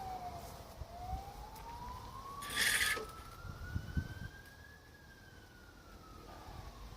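A distant emergency-vehicle siren wailing, its pitch sliding slowly down, then up over about four seconds, then down again. A short hiss about two and a half seconds in is the loudest sound.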